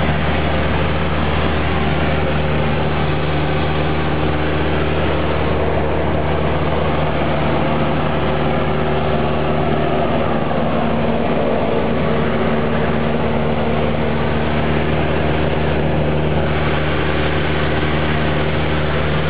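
Cessna 172's piston engine and propeller droning steadily in level flight, heard from inside the cabin.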